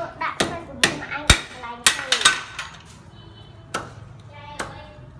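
Sharp knocks like hammering, about two a second for the first two and a half seconds, then two more spaced out, with voices in the background.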